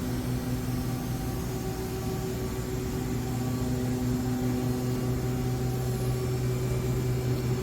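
Steady low machine hum of several even, unchanging tones from shop equipment, with no knocks or strokes.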